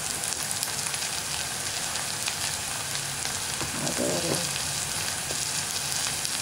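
Onion and tomato masala frying in oil in a steel pan: a steady sizzle with light crackles, as the masala sautés.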